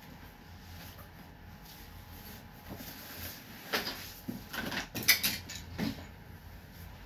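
Handling noise: a handful of short rustles and knocks as clothes and a bag are moved about, bunched together between about four and six seconds in, the loudest just after five seconds.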